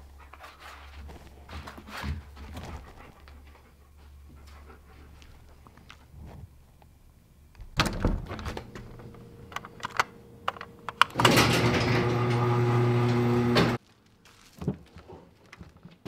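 Light knocks and a door being handled, then a loud, steady mechanical hum lasting about two and a half seconds that cuts off suddenly.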